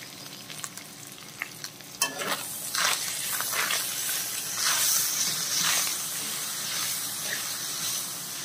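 Chicken and chopped vegetables sizzling as they fry in a metal pot, stirred with a slotted metal spatula that scrapes against the pot. The stirring starts sharply about two seconds in, with repeated strokes over a steady sizzle.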